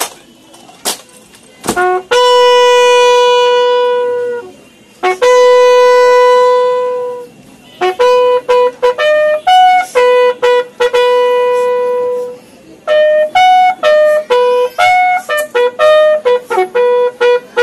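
Bugle call played as a funeral salute: two long held notes, then quick runs of short notes stepping between a few pitches, with more long notes held in between. A few sharp knocks come just before the first note.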